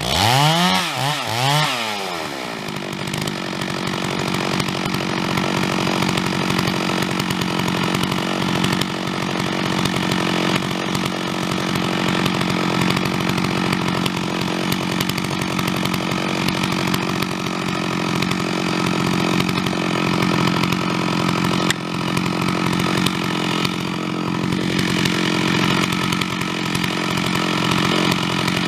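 Chainsaw revved a few times, then held at full throttle and running steadily as it cuts into the trunk of a large pine being felled.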